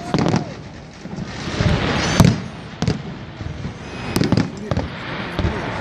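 Aerial fireworks bursting in quick succession: a string of sharp booms, the loudest about two seconds in, with a crackling hiss between them.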